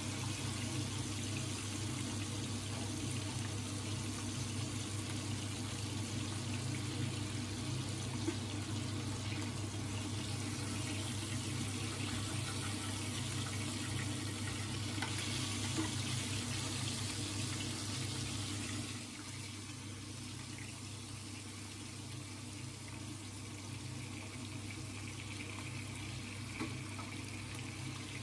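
Fish frying in hot oil in a frying pan: a steady sizzle, with a steady low hum underneath. The sizzle drops a little in level about two-thirds of the way through.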